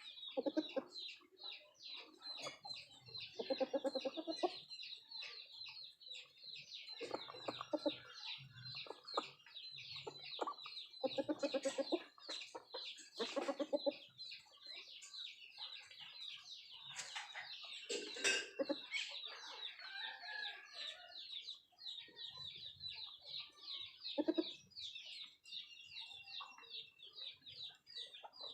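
Country chickens clucking in short bursts, several seconds apart, over a steady high chirping in the background.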